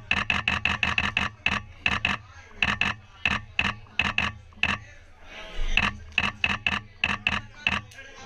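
A small group of people clapping hands in celebration: distinct, sharp claps in quick uneven runs, with short pauses and a few voices in between.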